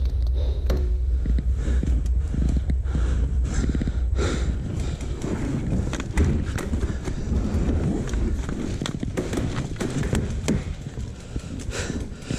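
Rustling, scraping and knocking of clothing and an airsoft rifle against a chest-mounted action camera as the wearer crouches and shifts about, with a heavy low rumble and many scattered sharp taps.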